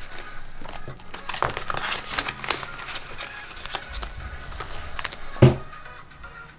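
Paper banknotes and a clear plastic zip pocket in a ring-binder cash wallet crinkling and rustling as bills are tucked in and pressed flat, with scattered small clicks and one louder thump about five and a half seconds in.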